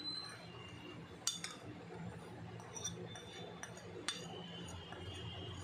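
A plate clinking against a glass mixing bowl as spices are tipped off it into the bowl. Two sharper clinks come about a second in and about four seconds in, with a few lighter taps, and the glass rings faintly after the second.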